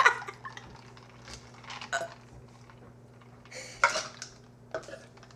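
Short, separate sounds of people drinking between burps: sips, liquid sloshing and the clink of drink containers. One louder sound comes right at the start and another a little before four seconds in.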